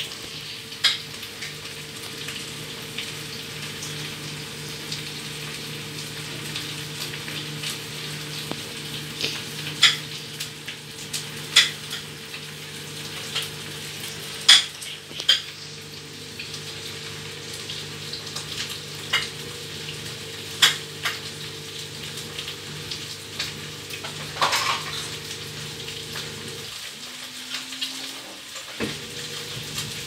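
Front-loading washing machine in its wash cycle: water and clothes slosh in the turning drum over a steady motor hum, with scattered sharp clicks and splashes. Near the end the motor hum stops for about two seconds, then starts again.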